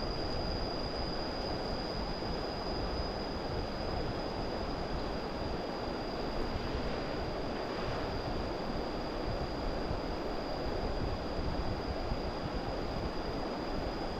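Steady outdoor rushing noise with a thin, steady high-pitched tone over it.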